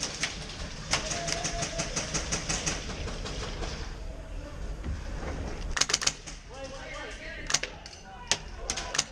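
Airsoft guns firing rapid strings of shots: a long run of quick, evenly spaced cracks early on, then several short bursts. Players' voices come in between.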